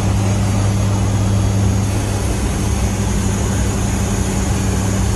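C-130J turboprop engines and propellers running with a steady, unchanging low hum.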